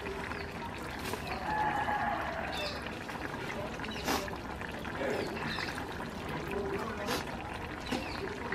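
Large pot of biryani rice and water boiling and bubbling over a wood fire while a long metal ladle stirs it. Two sharp knocks of the ladle against the pot, about four seconds in and again about seven seconds in.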